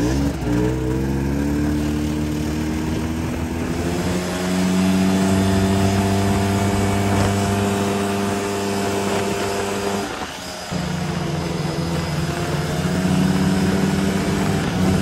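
Snowmobile engine running under throttle while riding; its pitch climbs over the first few seconds and then holds steady. About ten seconds in the throttle is let off for a moment and the engine drops, then it picks back up.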